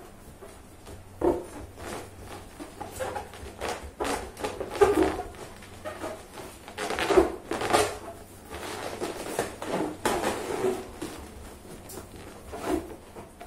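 Inflated red latex balloons squeaking and rubbing against each other and against hands as they are pressed and shifted into a cluster. The sound comes in irregular bursts, with the loudest squeaks about five and seven seconds in.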